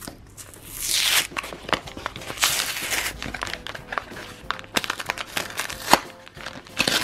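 Thin cardboard card box being torn open by hand: two long rasping tears about a second in and again midway, then crackling and rustling as the foil card packs are handled.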